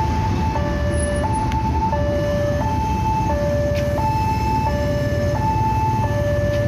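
Indonesian level-crossing warning alarm sounding a two-tone electronic signal, a lower and a higher tone taking turns about every two-thirds of a second, warning that a train is on the crossing. Underneath it is a steady low rumble from the passing passenger train.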